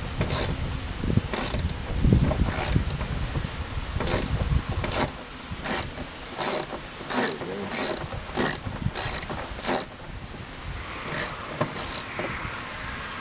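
Socket ratchet worked back and forth to loosen a tight screw, a short burst of clicks from the pawl on each return stroke, repeating roughly every two-thirds of a second, with a low rumble under the first half.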